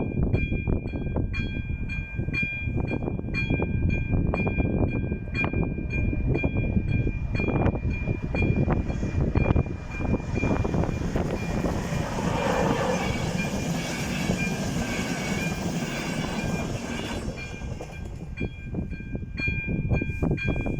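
Level-crossing warning bell (ZV-02) ringing in a steady regular rhythm while a train passes over the crossing; the train's rumble and wheel noise swell in the middle and cover the bell, which is heard clearly again near the end.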